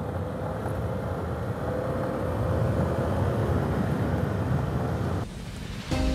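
Motorcycle engine running at steady road speed with tyres rolling on a gravel road. The ride sound drops away about five seconds in, and music starts at the very end.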